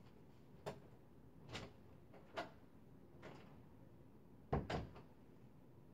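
Someone walking out of a room and shutting a door: several soft knocks about a second apart, then a louder double knock near the end as the door closes.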